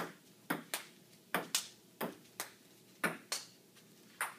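A table-tennis rally played with Rubik's cubes as paddles: about ten sharp clicks of the celluloid ball against the plastic cubes and the table, often in quick pairs, steady back and forth.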